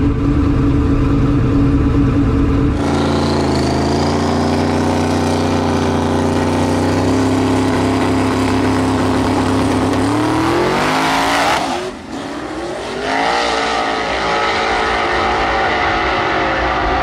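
Turbocharged drag-race engines of a Chevrolet El Camino and a twin-turbo Ford Mustang. A steady engine note is heard inside the car's cage cockpit, then after a cut both cars sit on the starting line. About ten seconds in, the engines rev up sharply at the launch, dip briefly, and keep running hard down the strip.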